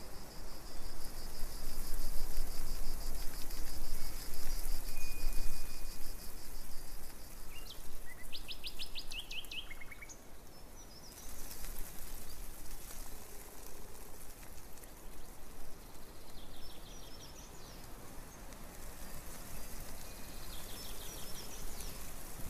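Small songbirds singing: a long, high, rapid trill for the first several seconds, then a quick phrase of rising and falling notes about eight seconds in, and shorter high phrases later on and near the end, over a steady background hiss.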